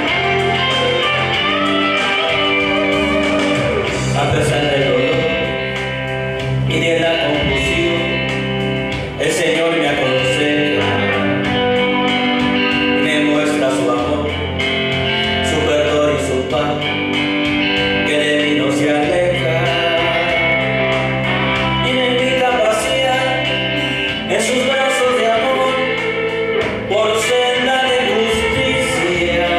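A man singing a Spanish-language ballad into a microphone over guitar accompaniment with a steady bass line.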